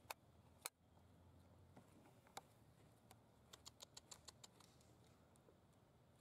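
Faint sharp clicks and crackles of dry leaves and grit being scratched by macaques, two single clicks near the start, another a little later, and a quick run of about eight a little past halfway.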